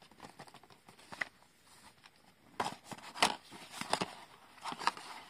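A cardboard toy box is handled and turned over, giving scattered short taps and scrapes. The loudest come in the second half.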